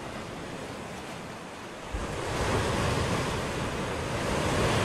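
Rushing, surf-like noise of a logo-intro sound effect, swelling louder about two seconds in and holding.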